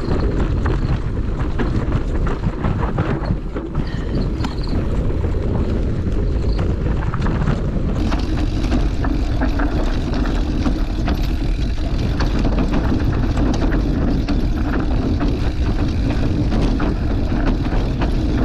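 Mountain bike riding down a rough trail: tyres rolling over rock and gravel and the bike rattling with frequent clicks and knocks, over a steady rumble of wind on the microphone.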